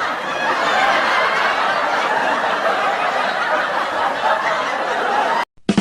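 Sound-effect clip of a crowd laughing, a dense steady laugh track, which cuts off abruptly about five seconds in; a short thump follows right at the end.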